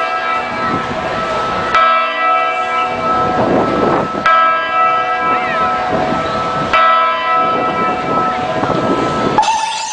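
Dance backing music built on a deep bell-like chime struck about every two and a half seconds, each strike ringing out, with sliding voice-like tones in between. Just before the end it switches to a new section with a higher, wavering melody.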